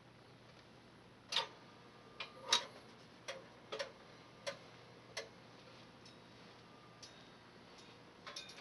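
Sunbeam Radiant Control auto-drop toaster with bread just inserted: a string of irregular sharp metallic clicks, each with a short ring, as its mechanism lowers the bread into the slots, thinning out to a few fainter ticks near the end.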